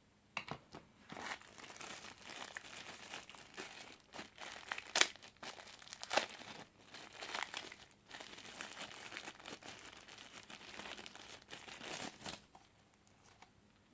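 Phone packaging being handled and unwrapped: irregular crinkling and crackling of plastic wrapping with sharp clicks, loudest about five seconds in, stopping shortly before the end.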